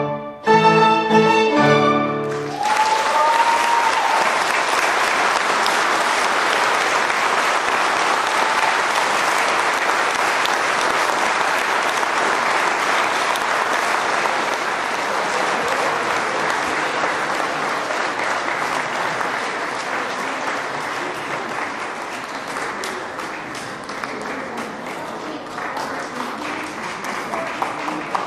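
Violins play the closing chords of a classical piece, which stop sharply about two seconds in. Then the audience applauds steadily, the applause slowly fading toward the end.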